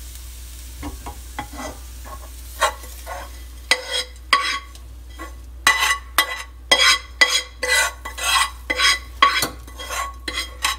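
Metal spoon scraping and knocking against a non-stick frying pan as sautéed onion and herbs are scraped out of it into a bowl of batter. A few light scrapes at first, then from about four seconds in a quick run of sharp scrapes and clanks, about two a second, with a metallic ring.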